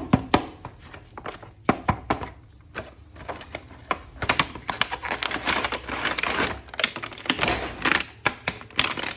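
Hands unpacking a plastic toy package: a run of sharp clicks and taps, then a denser stretch of scraping and rustling from about four seconds in.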